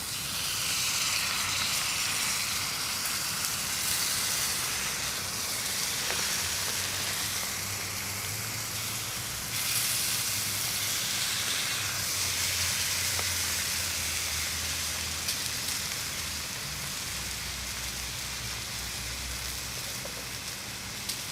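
Jingisukan mutton sizzling on a grill over a wood fire: a loud, steady hiss of frying fat that starts abruptly.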